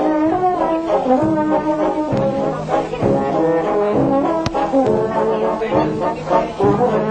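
Brass band music: held brass notes moving in steps from one pitch to the next, with a single sharp click about four and a half seconds in.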